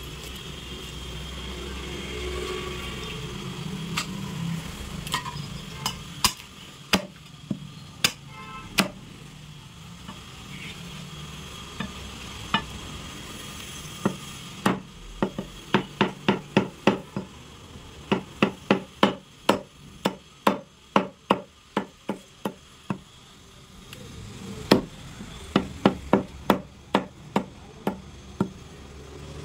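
Butcher's cleaver chopping through goat head and leg bones. A few single blows come first, then a fast run of chops at about three a second through the middle, and more blows near the end.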